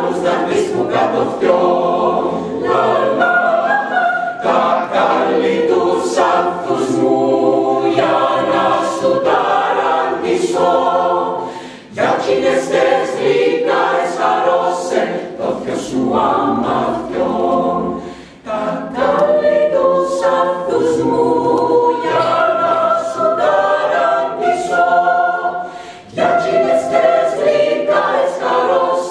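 Mixed chamber choir of women's and men's voices singing a cappella, in phrases with short breaks between them, three times.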